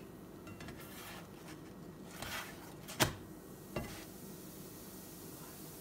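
Nylon slotted spatula scraping across a nonstick frying pan and knocking against it as it slides under a naan: a short scrape about two seconds in, then a sharp knock and a lighter one just after.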